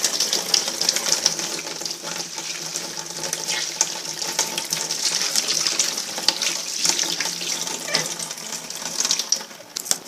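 Kitchen tap running into a sink during washing up, with short knocks and clinks throughout; the water shuts off near the end.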